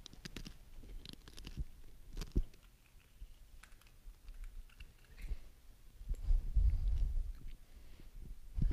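Light clicks and taps of communion vessels (a paten of wafers and a metal chalice) being handled and set on the altar, with low muffled rumbling thumps from about six seconds in, like robes or hands rubbing near a headset microphone.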